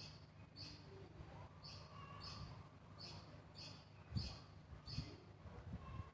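A small bird chirping faintly and repeatedly, short high chirps about every half to one second, over a low steady hum, with a couple of soft thumps about four and five seconds in.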